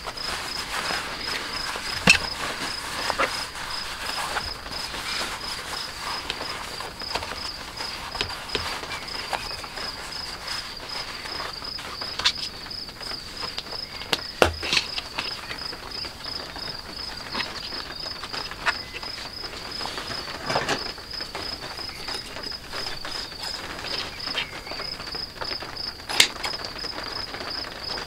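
A cricket chirping in a steady, evenly pulsed high trill, with a few sharp taps and rustles as cloth and leather are handled on a work mat.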